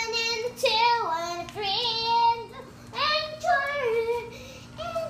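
A child singing wordlessly in a high voice, in four short phrases of held notes that step up and down, with brief pauses between them.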